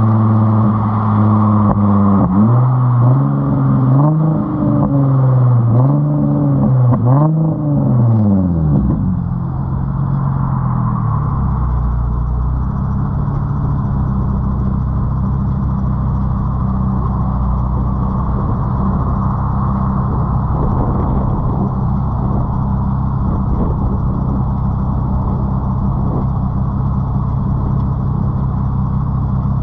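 Straight-piped exhaust of a Nissan 350Z's 3.5-litre VQ35 V6, heard right at the tailpipes. It holds a steady raised pitch, then revs up and back down about four times, then drops to a steady low idle for the rest.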